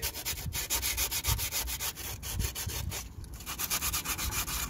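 Very fine sandpaper rubbed by hand over the thermostat housing's mating face in quick back-and-forth strokes, with a short pause about three seconds in. This cleans the gasket surface so silicone sealant can be applied.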